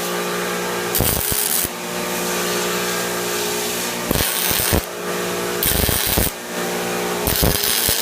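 Short bursts of tack welding on the steel grille tabs, each about two-thirds of a second, four times in a row, over a steady low hum.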